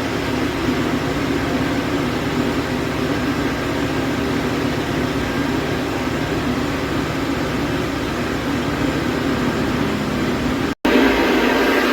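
Small motorcycle engine running steadily at idle, with an even, rapid pulsing. It cuts out for a split second near the end.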